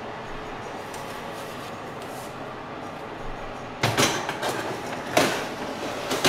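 Metal baking tray of sweet potato wedges slid along the metal rails of a Siemens oven, scraping and clattering about four seconds in and again about five seconds in, with a last knock near the end as it goes home. Before that there is a steady rushing noise.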